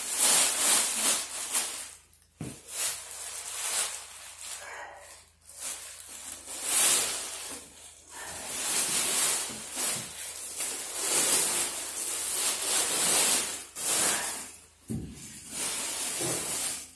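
Clear plastic wrapping crinkling and rustling as it is pulled off a benchtop wood lathe and bunched up, in irregular bursts with a few short pauses.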